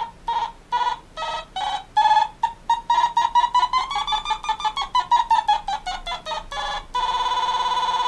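Gakken SX-150 Mark II analog synthesizer played with its stylus: a run of short electronic bleeps at changing pitches, coming faster from about three seconds in and sliding up and then back down in pitch, followed near the end by one steady held tone.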